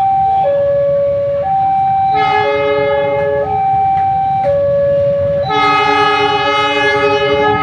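Freight train locomotive horn sounding two blasts: a short one about two seconds in, then a longer one held for nearly three seconds. Under the horn a two-tone warning alarm keeps sounding, switching between a high and a low tone about once a second.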